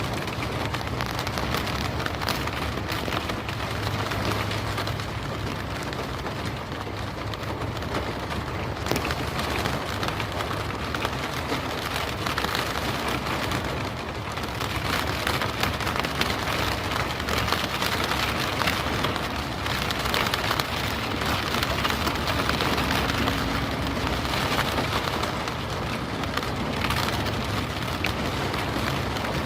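Rain falling on a car window: a dense, steady patter of countless drops that swells and eases gently.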